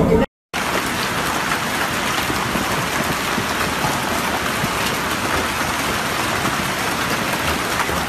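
Hail and heavy rain pelting a paved street in a dense, steady hiss of hits. It cuts out briefly near the start.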